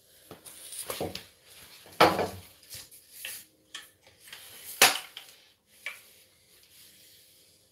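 Handling noise from a phone being set up on a tripod rig: scattered clicks, knocks and rubbing, with two sharp knocks about two seconds in and just under five seconds in.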